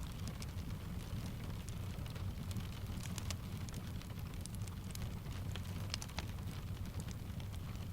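Steady rain with a low rumble, mixed with a wood fire crackling in scattered sharp pops.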